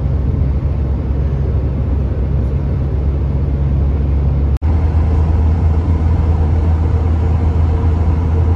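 Steady low rumble of road and engine noise from an SUV driving along a highway. The sound drops out for an instant about halfway through, then carries on unchanged.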